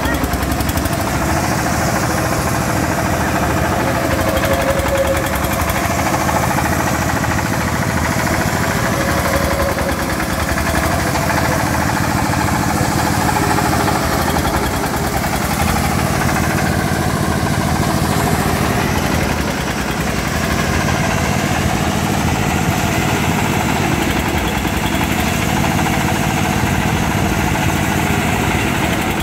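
The drive engine of a swinging boat fairground ride running steadily. It turns a wheel pressed against the underside of the boat's hull.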